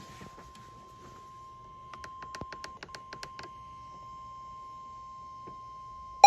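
NOAA Weather Radio warning alarm tone: a steady, unbroken tone of about 1050 Hz that signals a warning is about to be read. A run of sharp clicks comes about two to three and a half seconds in, and a loud electronic beeping breaks in right at the end.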